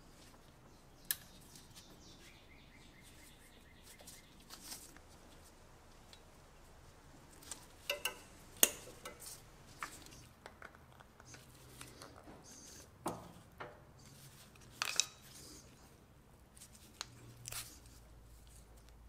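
Scattered clicks and light taps of hand work on new spark plug wires: pliers and a small metal terminal handled as the terminal connector is worked off the end of a wire. The sharpest clicks come a little past the middle.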